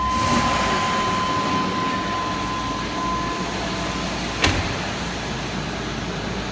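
Chevy 5.7 L Vortec V8 running steadily at idle with its new distributor in, while the cam/crank timing is checked. A thin steady whine fades out about halfway through, and there is a single sharp click near the end.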